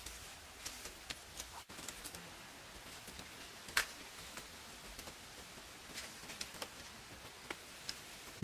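Faint eating sounds: scattered small clicks and ticks over a low hiss, with one sharper click about four seconds in.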